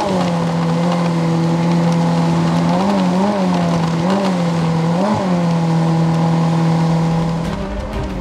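Jet boat's outboard motor running steadily at speed. Its pitch rises briefly and drops back several times in the middle, and the engine sound cuts away near the end.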